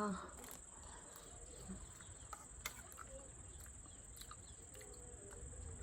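Quiet background with a steady high-pitched whine and a low hum, broken by a few faint, scattered clicks.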